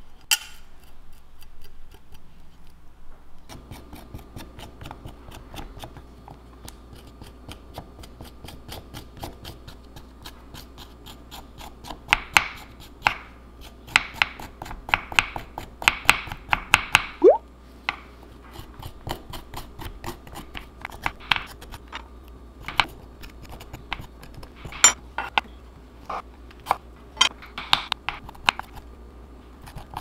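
A metal spoon scraping the skin off fresh ginger root on a wooden cutting board: quick runs of sharp, scratchy scrapes and clicks, with one short rising squeak partway through.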